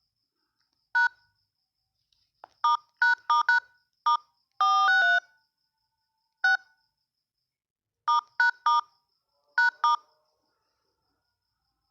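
Phone keypad dialing tones (DTMF) as digits are tapped in: about a dozen short two-note beeps at uneven intervals, with one longer tone about halfway through.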